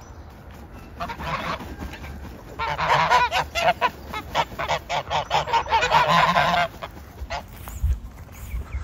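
Several domestic geese honking in quick runs of overlapping calls, one short run about a second in and longer runs in the middle, dying down near the end.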